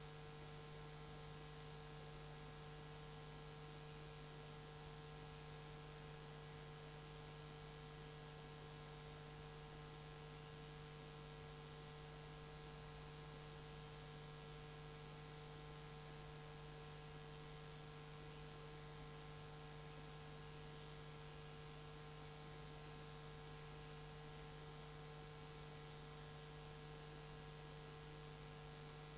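Faint, steady electrical hum with a thin hiss above it, unchanging throughout: the recording's noise floor.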